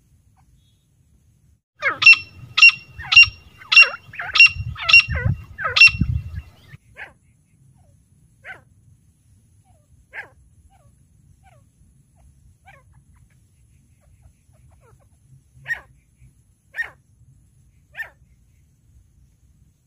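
Caged female grey francolin calling: a rapid series of about seven loud, sharp calls over some four seconds, with a low rumble under the last few, then a handful of softer single notes spaced a second or more apart.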